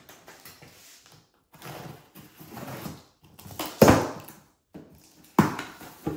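A cardboard box being opened with a knife: the blade slitting the box, the flaps pulled open and the box handled. The sound is scraping rustles with a few sharp knocks; the loudest comes about four seconds in.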